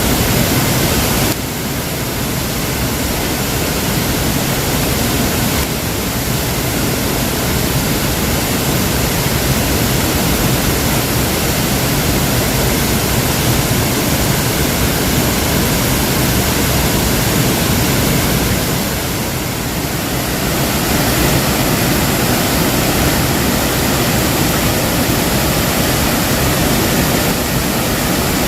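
Waterfall: a steady, full rush of falling water, dipping slightly in level about a second in and again about two-thirds of the way through.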